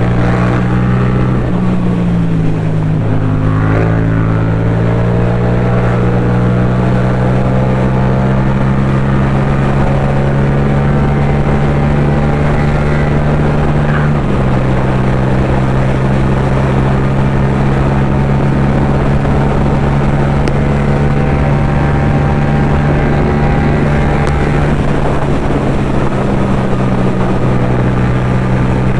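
Yamaha MT-07 parallel-twin engine with an Akrapovič exhaust running at steady cruising revs while riding, under a haze of wind rush. The engine note dips briefly a few seconds in and settles a little lower about halfway through, as the throttle or gear changes.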